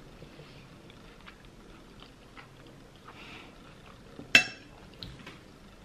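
Cutlery clicking and scraping on a plate during a meal, with one sharp, ringing clink of metal on the plate a little after four seconds in.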